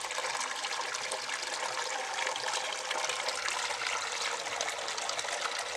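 Watery pig-dung slurry trickling steadily down the inlet pipe of a plastic bag biogas digester, poured in slowly.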